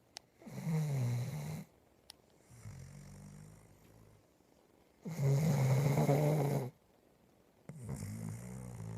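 Snoring: two loud snores about a second and a half long, roughly four and a half seconds apart, with softer, lower snoring breaths between them.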